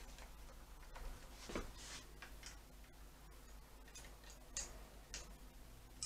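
Light, irregular metallic clicks and scrapes of spanners working the throttle cable adjuster on a motorcycle's carburettors, with the throttle cable being worked; one louder knock about a second and a half in.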